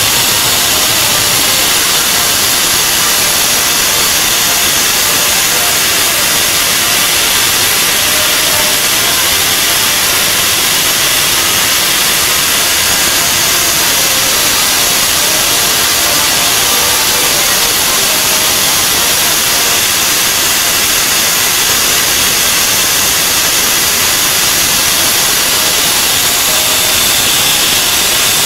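Steam escaping from a standing GWR Hall class 4-6-0 steam locomotive: a loud, steady hiss.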